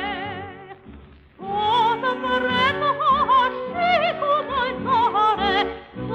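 A soprano singing an Albanian song with wide vibrato over instrumental accompaniment, from an old recording with a narrow, muffled top end. The voice falls away about a second in, then comes back and carries on.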